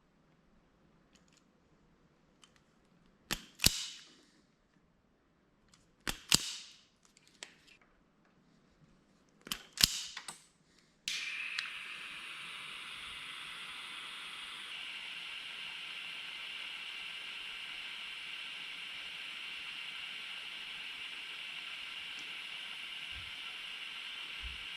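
Three pairs of sharp snapping clicks from a hand tool working the wire, a few seconds apart. Then a steady hiss from a heat tool switches on abruptly and keeps going.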